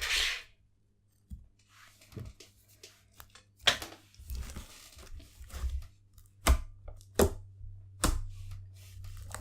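Slime being stretched, squished and pulled apart by hand, with sticky tearing sounds and several sharp little pops or snaps spread through the second half.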